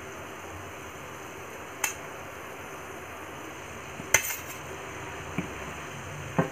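A few sharp metal clinks from a plate and a kadhai as chopped cabbage is tipped from the plate into the pan, the loudest a little past halfway, over a steady faint hiss.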